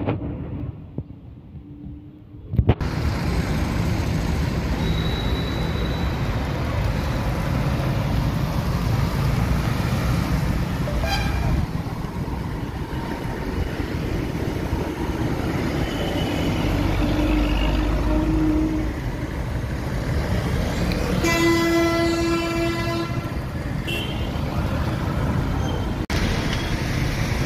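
Steady road traffic on a busy highway, cutting in abruptly about three seconds in. A vehicle horn sounds once for about a second and a half near the three-quarter mark.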